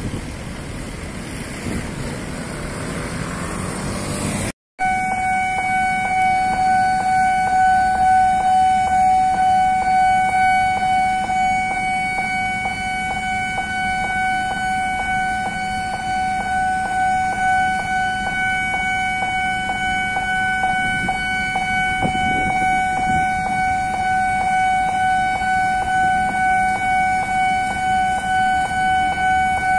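Railway level-crossing warning alarm sounding: a loud, steady electronic tone that pulses evenly, starting abruptly about five seconds in. Before it, street traffic noise.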